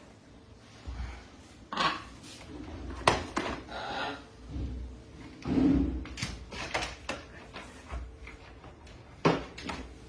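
Irregular knocks, clicks and handling clatter, the sharpest about three seconds in and again near the end.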